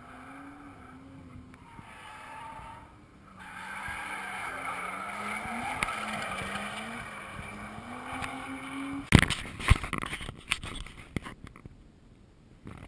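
A car's engine revving up and down as it is driven hard around an autocross course, with tyre noise swelling as it comes nearer. About nine seconds in, a burst of sharp, loud knocks and crackles, the loudest sounds, cuts across it.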